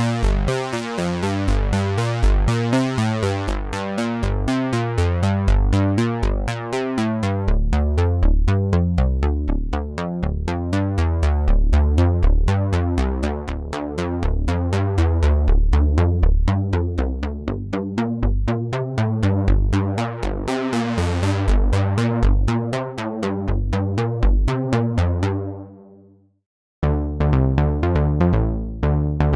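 Electronic music from software synthesizers: a repeating synth pattern over a drum machine beat. It fades out about 26 seconds in, and after a second of silence a new pattern starts.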